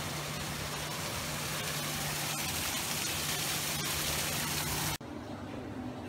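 Steady rushing and splashing of water falling over rocks into a pool, with a low steady hum underneath. It cuts off abruptly about five seconds in, leaving a quieter faint hum.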